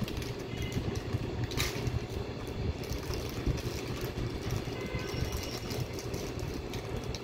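Steady low background hum, with light rustling and a few small clicks as plastic net clips are handled and unwrapped.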